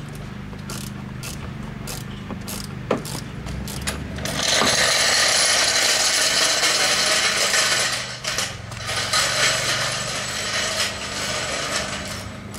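Ratchet wrench clicking as the 8 mm bolts holding a BMW E46 headlight are turned out, with a long run of fast, continuous ratcheting about four seconds in and shorter bursts after.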